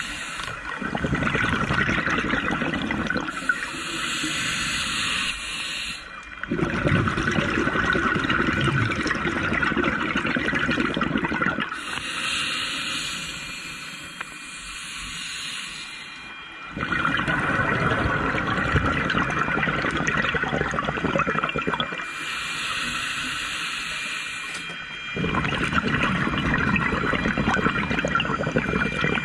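Scuba regulator breathing underwater, in a slow steady cycle: four long bubbling exhales, with a quieter hissing inhale through the demand valve between each.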